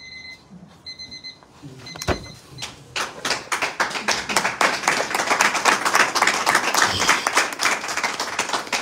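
A room of people applauding: dense clapping that swells and then fades near the end. It is preceded by electronic beeping in short pulses during the first second or so, and a single thump about two seconds in.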